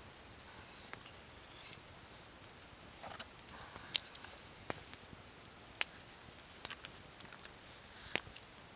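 Quiet handling sounds: a few sharp, separate clicks and ticks and a brief soft rustle of a plastic bag as a peeled wooden stick and a knife are worked into a rack of raw pork ribs.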